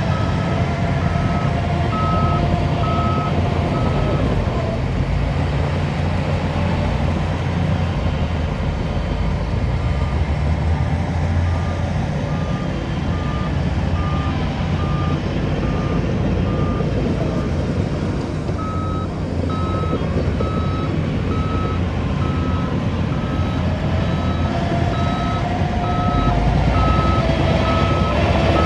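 Reversing alarm of heavy construction machinery beeping in a steady series over the rumble of diesel engines. The beeping stops about four seconds in, comes back fainter and slightly lower in pitch, and then returns louder for the second half.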